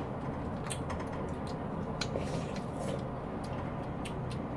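Eating fresh pineapple: scattered small clicks of biting and chewing juicy slices, over a steady low room hum.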